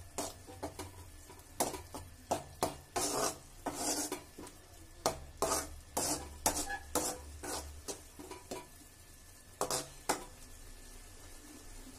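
Steel ladle stirring a thick bitter gourd fry in a metal kadai: a run of irregular scrapes and clinks of the ladle against the pan, which stop about ten seconds in.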